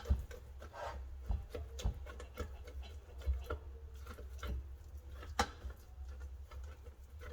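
Boiled egg being grated by hand on a grater: irregular scraping strokes with light taps, one sharper knock about two-thirds of the way in.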